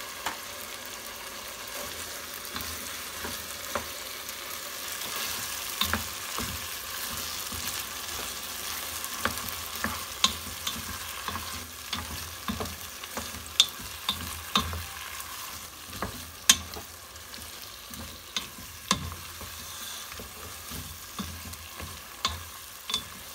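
Chicken pieces cooking in a pot with a steady hiss, while a wooden spatula stirs them. The spatula knocks and scrapes irregularly against the sides of the nonstick pot, starting about a quarter of the way in.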